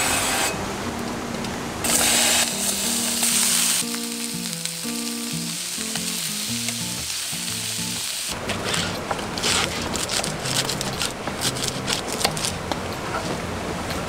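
Aerosol cooking-oil spray hissing into a frying pan, then cubes of lamb sizzling and crackling as they fry, with small clicks of tongs stirring them. A short tune plays over the middle few seconds.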